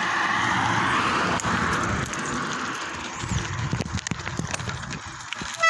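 Bicycle rolling over a rough dirt-and-gravel track: steady tyre noise with many quick knocks and rattles as the bike jolts over the bumps. A high squeal starts right at the end.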